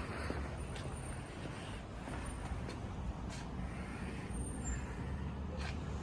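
Steady low engine rumble of a heavy road vehicle such as a bus or lorry, with a faint high thin whine for about two seconds near the start.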